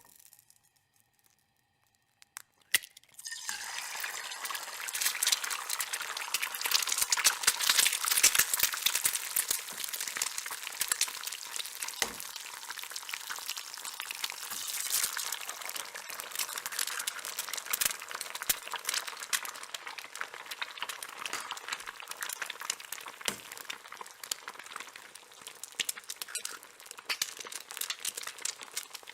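Eggs frying in a pan. After a near-silent start and a sharp tap, a dense crackling sizzle starts suddenly about three seconds in, is loudest a few seconds later, then settles to a steady spitting sizzle.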